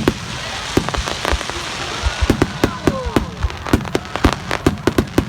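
Fireworks going off: an irregular string of sharp cracks and pops that comes thicker and faster about two seconds in.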